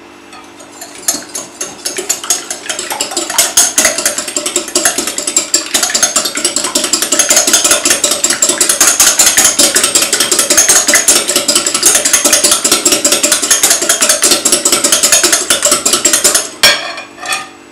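Wire whisk beating an egg in a glass bowl: a fast, steady rattle of the metal tines clicking against the glass. It builds up over the first few seconds and stops near the end with a sharp knock.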